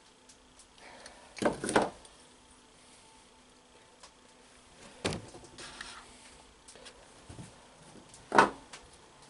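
Tools and small alternator parts being handled on a wooden workbench: a short double clatter about a second and a half in, then single knocks about five and eight seconds in, as the pliers and the brush-holder and regulator assembly are worked and set down.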